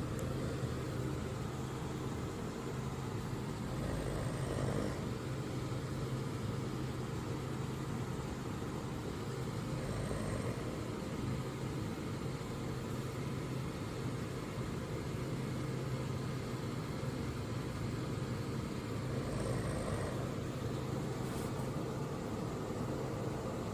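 A person snoring: three soft snores several seconds apart, over a steady low hum.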